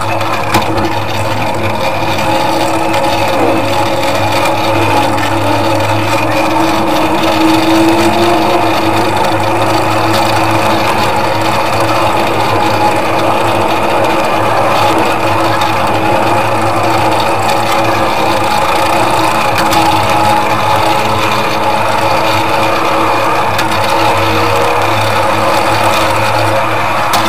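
Miniature ride-on park train running along its narrow-gauge track: a continuous grinding, rattling rolling noise of the wheels on the rails, with a steady hum beneath it.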